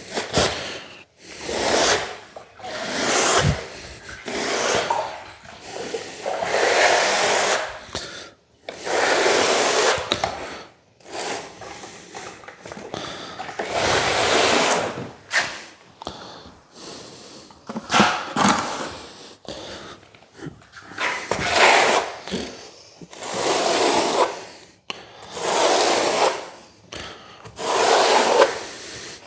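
A hand tool scraping over a hard surface in repeated strokes, each a second or two long, about a dozen in all.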